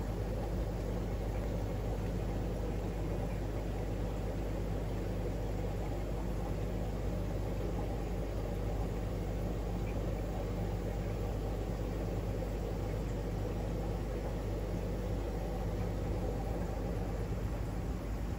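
Steady low mechanical hum and rumble of fishroom equipment, unchanging throughout.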